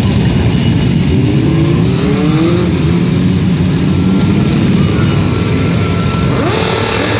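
A procession of motorcycles riding past slowly, their engines rumbling together. An engine revs up about a second in and again near the end.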